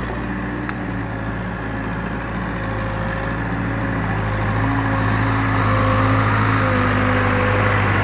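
Case 580K backhoe's diesel engine running steadily, growing louder partway through.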